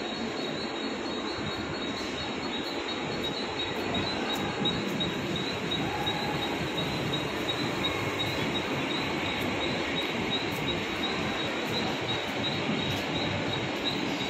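Mumbai Western Railway suburban electric local train rolling along the platform: a steady rumble of wheels and coaches, with a thin high tone pulsing over it.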